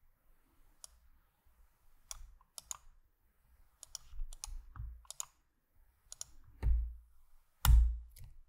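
Typing on a computer keyboard: scattered key clicks, with two heavier thuds near the end.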